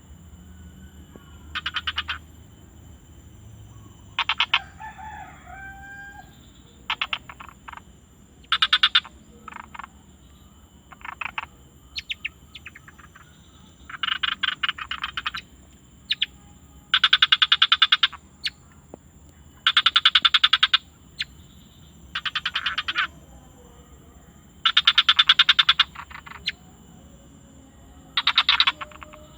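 Frogs in a forest chorus calling in short trains of rapid pulses, about a dozen bouts, louder and closer together in the second half, over a steady high-pitched whine. A brief gliding call comes about five seconds in.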